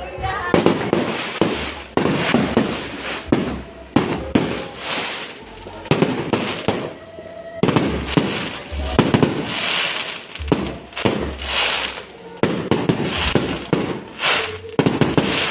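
Fireworks going off: a rapid, irregular series of sharp bangs with hissing and crackling between them.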